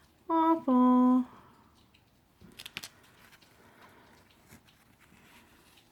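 One short spoken word, then near silence with a few faint clicks.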